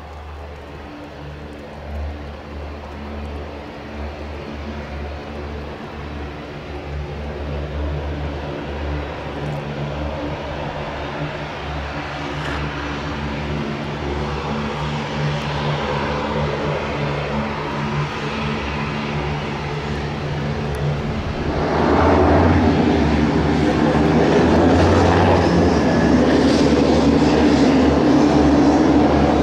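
Beechcraft 1900D's twin Pratt & Whitney PT6A turboprops and propellers on landing and taxi: a steady propeller drone with several hum tones, growing louder as the plane comes closer, with a sudden step louder about three-quarters of the way through.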